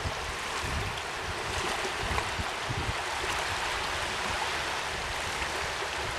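Small lake waves lapping steadily at the shore, with wind buffeting the microphone in low, uneven rumbles.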